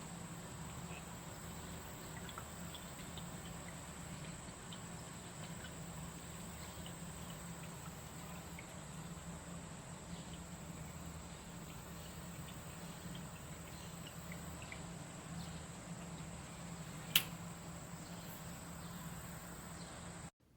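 Faint steady low hum and a thin high-pitched whine, with scattered soft ticks and one sharp click about seventeen seconds in.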